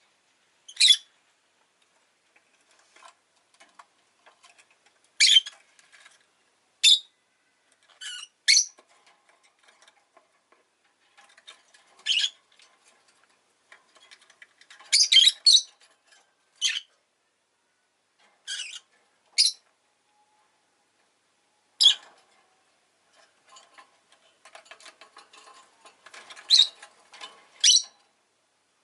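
Rosy-faced lovebird giving short, sharp, shrill chirps, about a dozen spread irregularly with pauses between, some in quick pairs. Faint scratching and rustling runs between the calls, busier near the end.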